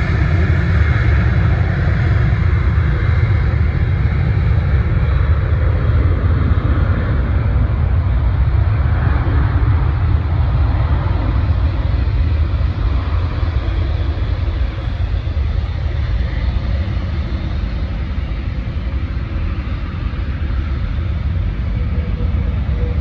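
Jet airliner taking off: steady jet engine noise with a deep rumble, falling off slightly in the second half as the aircraft climbs away.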